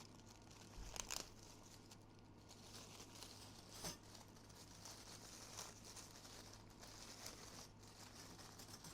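Faint rustling and crinkling of appliance packaging being handled, with a few soft clicks, about a second in and near the middle, over a faint steady low hum.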